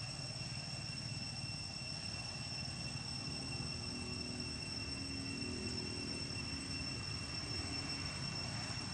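Steady low rumble of distant engine traffic, with a faint engine hum swelling and fading around the middle, over a steady high-pitched whine.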